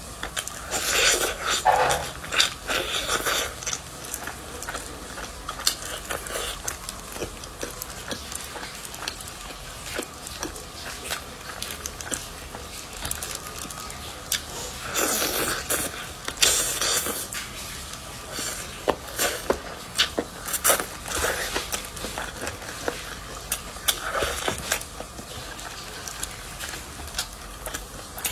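Close-up eating of chicken drumsticks: meat torn from the bone, bitten and chewed. The sounds come in crackly clusters, about a second in and again around the middle, with short clicks of chewing between.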